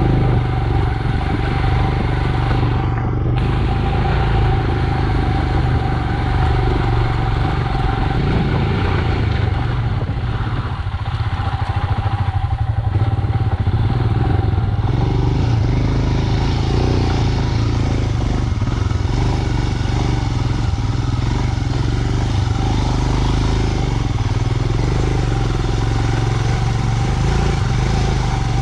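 Royal Enfield Himalayan's 411 cc single-cylinder engine running steadily as the motorcycle is ridden off-road.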